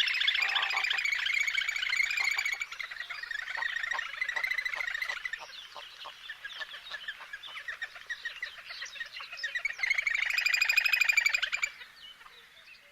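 A flock of small birds chirping and chattering together in a dense, overlapping twitter, loudest at the start and again about ten seconds in, then fading away near the end.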